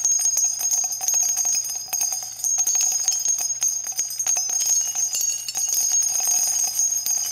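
End-card music made of dense, rapid jingling bells and chimes with a bright ringing shimmer over a low steady hum, starting abruptly.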